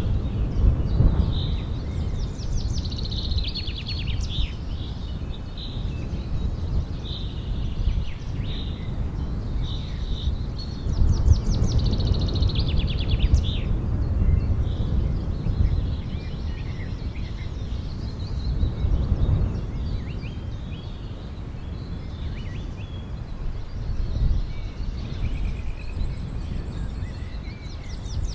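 Birds chirping, with bursts of fast trills now and then, over a steady low rumble of background noise.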